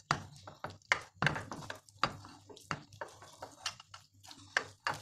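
Bare hands squeezing and kneading raw minced meat on a plate: irregular wet squelches and small slaps, a few each second.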